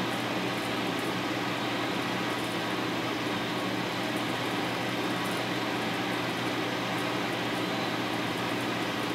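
Steady whirring hum of a fan, with a few faint light ticks scattered through it.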